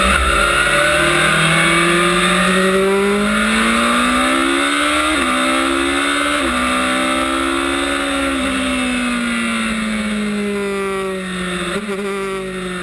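Onboard sound of a Lola-Judd sports prototype's engine at full throttle, rising in pitch through the gears with two quick upshifts about five and six seconds in. The pitch then falls steadily as the car slows, with a short downshift blip near the end.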